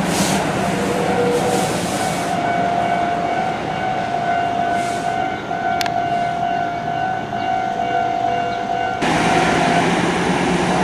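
Level-crossing warning alarm sounding a steady ringing tone over the passing rumble of a heavy double-trailer haul truck. The tone stops near the end, just after the vehicle noise jumps suddenly louder about nine seconds in.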